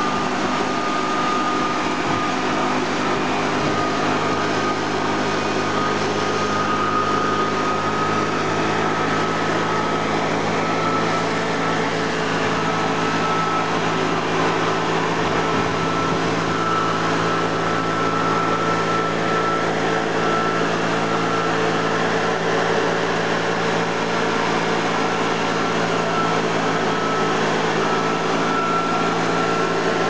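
Makita Numazu (Rabbit) FL-H7500 engine-powered leaf blower running steadily, its engine note carrying a high steady whine over the rush of air from the nozzle.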